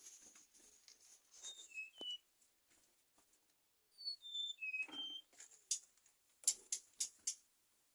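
A suligan songbird singing short phrases of clear whistled notes that step down in pitch, a brief one early and a fuller one about four seconds in, followed by several sharp clicks.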